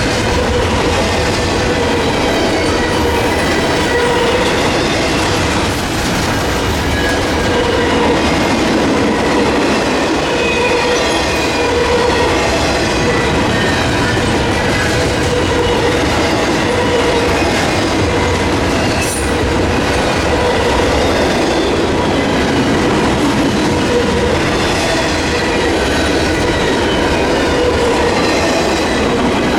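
Railroad cars rolling steadily past, a continuous rumble of wheels on rail with faint wavering ringing tones above it.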